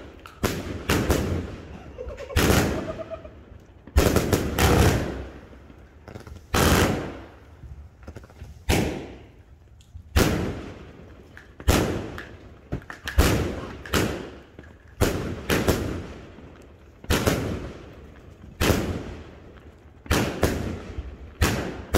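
A Dream Keeper Super Color 100-shot firework cake firing shot after shot, about one every second or two. Each is a sharp report that rings out and fades before the next.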